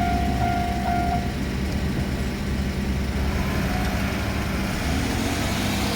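Level-crossing warning alarm sounding a steady pulsing tone, then stopping about a second in as the crossing clears. A low engine rumble continues underneath, rising slightly near the end.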